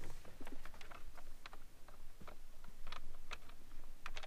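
Hands fitting the plastic radio bezel into a Jeep Wrangler JL dash: irregular light clicks and taps of hard plastic trim and clips being lined up and pressed into place.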